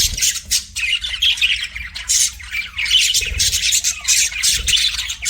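A budgerigar warbling to a mirror: a continuous fast stream of chattering chirps and harsh squawky notes.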